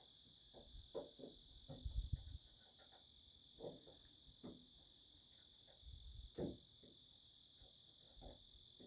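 Steady faint trill of crickets, with a few light clicks and knocks from a small Allen wrench being worked on a truck door handle's set screw, the loudest about two seconds in and again a little after six seconds.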